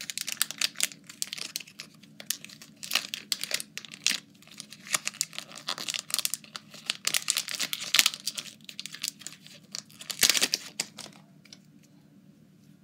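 Foil wrapper of a Pokémon card booster pack crinkling and tearing, a dense run of sharp crackles that stops about a second and a half before the end.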